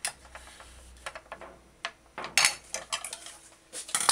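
A kitchen knife and a ceramic plate clinking and knocking against each other and the counter: a scattered run of sharp clinks, loudest about two and a half seconds in and again near the end as the knife is laid down on the plate.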